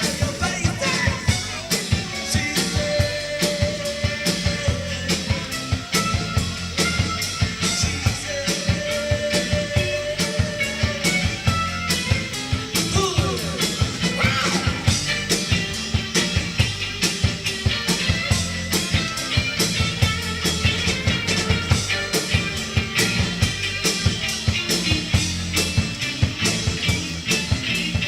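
Live rock band playing: drums keep a steady, fast beat over a heavy bass line while a lead instrument holds long notes, with some bent notes about halfway through.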